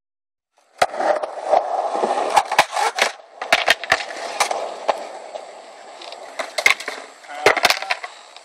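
Skateboard wheels rolling on concrete, starting about a second in, with many sharp clacks and knocks of boards striking the ground, a loud pair near the end.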